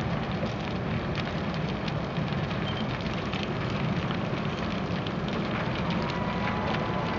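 The large wooden Temple of Transition burning: a steady rushing noise from the blaze with scattered sharp crackles and pops.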